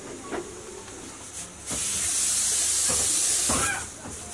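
Knife strokes scraping and cutting through a fibrous giant taro stem, a few short scrapes, with a loud, steady hiss lasting about two seconds in the middle that starts and stops abruptly.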